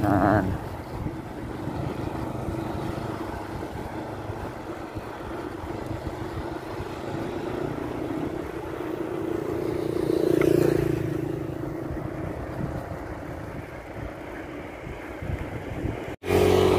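Steady traffic rumble and wind noise on the microphone of a moving bicycle, with a motor vehicle passing about ten seconds in, swelling and then fading. The sound cuts out briefly near the end.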